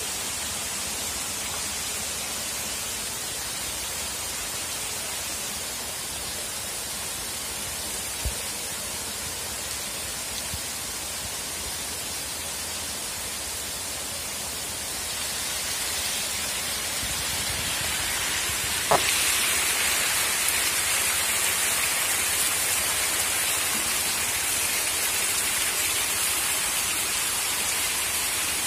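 A dense mass of hybrid magur catfish churning and splashing at the water's surface, a steady hiss like rain. It grows louder a little past halfway, with one sharp knock about two-thirds through.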